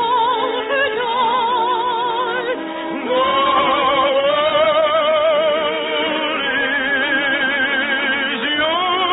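Operatic soprano singing long held notes with a wide vibrato over an orchestra, the voice climbing to a higher note about three seconds in and again near the end. The sound is narrow and muffled, as on an old radio recording.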